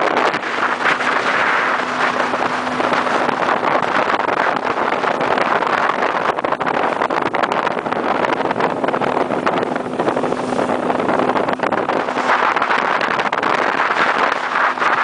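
Small motorboat running under way: a steady low engine hum under heavy wind rushing over the microphone.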